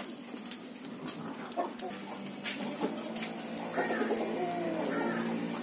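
Birds calling in the background: a few short calls and a longer falling call about four seconds in, with some faint clicks.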